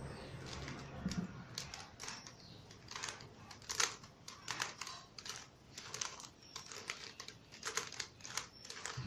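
Rubik's cube being turned through an algorithm by hand: a quick, irregular run of plastic clicks and clacks as the layers rotate and snap into place.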